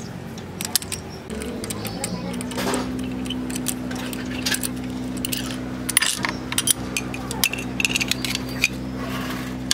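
Metal clinks and scrapes of a T-handle spark plug socket wrench being worked in a car engine's spark plug wells. A steady low hum sets in about two seconds in and runs under the clinks.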